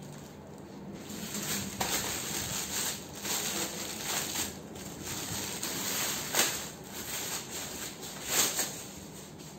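Clear plastic packaging bag crinkling and rustling as it is handled and pulled open, with several sharper, louder crackles.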